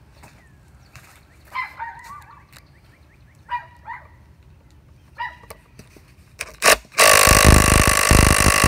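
Impact driver hammering hard on a tight Torx Plus bolt of a Toyota VVT-i cam gear from about 7 s in, the bolt not breaking loose. Before it, a few short animal calls.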